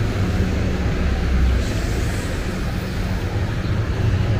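Street traffic: vehicle engines running, with a low hum that fades and returns over a steady rumble.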